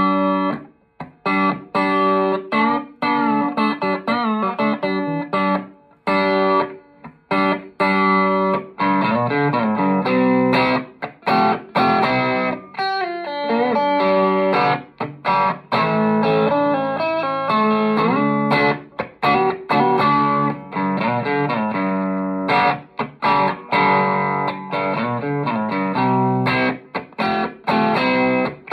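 Grubisa '53-style electric guitar played through a Soldano amplifier with a little gain: phrases of single notes and chords with light overdrive, broken by frequent short stops.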